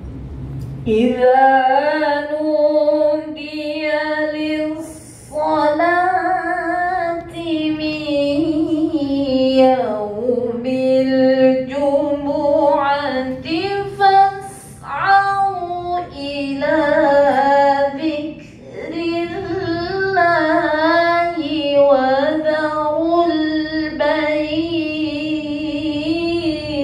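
A woman's voice reciting the Qur'an in Arabic in the melodic tilawah style: long, ornamented notes that rise and fall, sung in phrases of a few seconds with brief pauses for breath between them.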